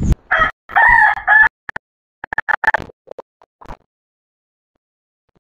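A rooster crowing, a drawn-out call of a little over a second, followed by several shorter calls that fade out about four seconds in.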